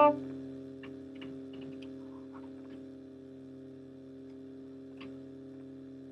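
A Wilkes Rudall-model wooden flute's note breaks off right at the start. Then come a few faint, scattered clicks and taps as the flute is set down and a second flute is picked up, over a steady low hum.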